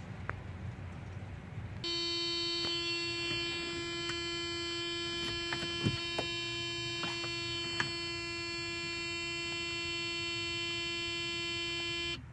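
A car's electronic warning buzzer sounds a steady, even tone. It starts about two seconds in and cuts off abruptly near the end, with a few light clicks over it.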